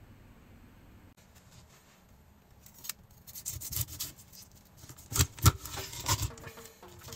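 Kitchen knife cutting into a whole red-tail horse mackerel behind the head on a cutting board: irregular scraping strokes start a few seconds in, with two sharp cracks about half a second apart, the loudest sounds, a little after five seconds.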